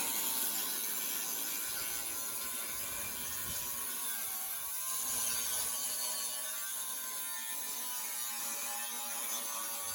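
A power tool working on a steel car frame: a steady high hiss with a whining tone that dips and recovers about four seconds in, as if under load.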